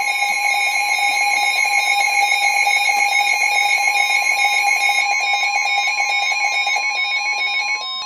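Several NOAA weather radios sounding their alert alarms at once for a severe thunderstorm warning: loud overlapping steady tones with beeping over them. One steady tone cuts off just before the end while the beeping carries on.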